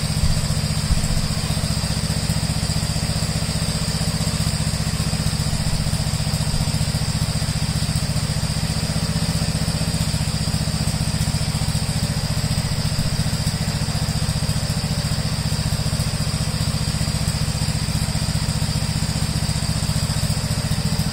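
Gravely tractor engine running steadily at constant speed after a cold start in freezing weather, with its choke off.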